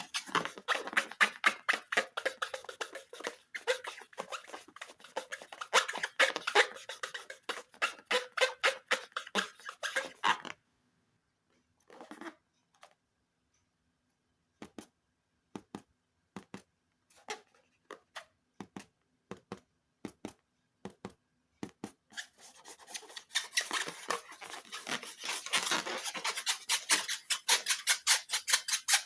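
Rapid sticky crackling and clicking from balloon slime being worked by hand, in two long dense runs with a near-silent stretch of scattered single clicks between them.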